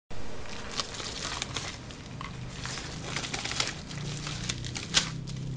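Plastic-coated padded mailer being handled and turned over, rustling and crinkling with many small sharp crackles, the loudest snap about five seconds in.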